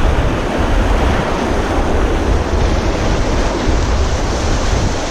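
Fast river water rushing and churning over rocks in a steady, loud wash, with wind buffeting the microphone.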